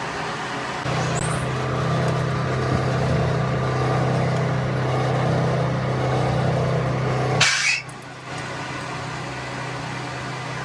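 A motor vehicle engine running steadily at idle, with a short loud hiss about seven and a half seconds in, after which the engine sound is quieter.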